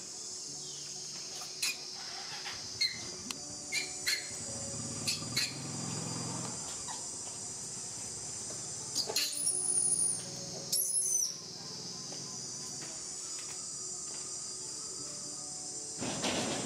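Steady high-pitched drone of insects, with scattered short clicks and brief chirps, a few thin high squeaks around the middle and a short noisy burst near the end.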